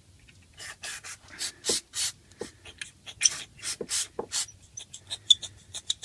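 Aerosol carburettor cleaner sprayed in a string of short squirts into a small plastic Briggs & Stratton lawnmower carburettor, flushing it out; quicker, smaller clicks and rustles come in near the end.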